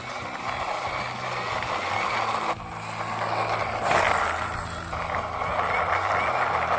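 Toy racing car running with a steady, rough mechanical noise, which cuts off suddenly about two and a half seconds in and then starts again.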